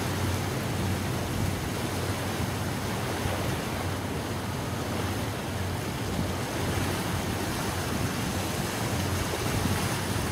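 Steady rushing noise of wind and sea, with a low hum underneath.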